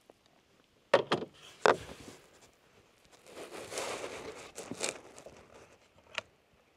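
Handling noise at a shooting bench: a few sharp clicks and knocks about a second in, the loudest sounds here, as eyeglasses are set down on the table, then soft rustling while the shooter settles behind the rifle, and one short sharp click near the end.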